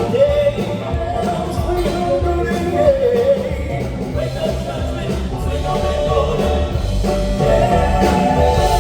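A Southern gospel vocal group sings with band accompaniment, heard as a live performance.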